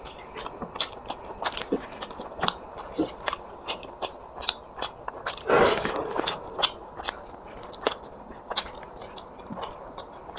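A person chewing curry and rice close to the microphone: rapid wet mouth smacks and clicks, several a second, with one louder, noisy crunch about halfway through.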